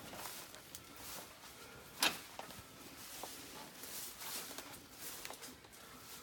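Faint knocks and rustling of people moving about inside an empty trailer, with one sharp knock about two seconds in.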